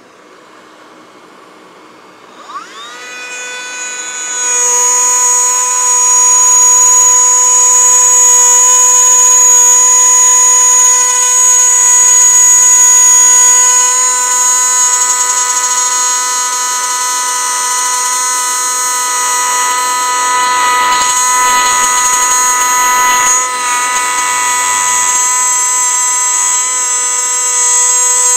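Greenworks G24RO cordless brushless trim router spinning up with a quick rising whine a couple of seconds in. It then runs at a steady high pitch as it cuts a groove in a plywood board. Underneath, a cordless vacuum draws the dust off through the router's shroud.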